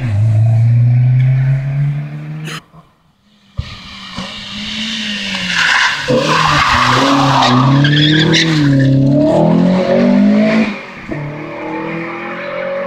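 A rally car's engine revving with rising pitch as it pulls away from a hairpin, cut off about two and a half seconds in. A BMW E30 rally car then comes in, its tyres squealing as it slides through the hairpin while the engine revs up and down, and accelerates away, fading near the end.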